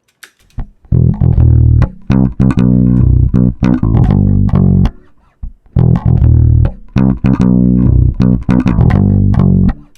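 Electric bass guitar recorded direct (DI), played back dry with no compression: a short riff of plucked low notes, heard twice with a brief gap between.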